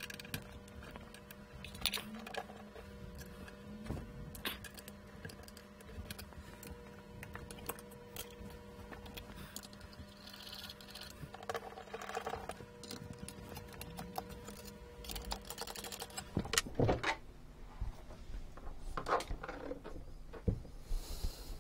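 Light, scattered clicks and taps of bolts being undone and metal parts handled on a laboratory scanner's optics assembly. Louder knocks and clatter come in the last few seconds as the assembly is lifted out of its plastic base. A faint steady hum underlies the first three-quarters and stops suddenly.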